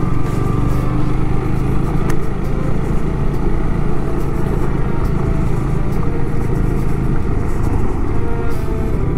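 Honda Rebel 250's single-cylinder engine running steadily at low cruising speed, with wind and road noise.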